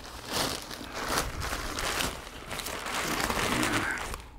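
Plastic bag crinkling and rustling in irregular bursts as a manual transmission case resting on it is handled.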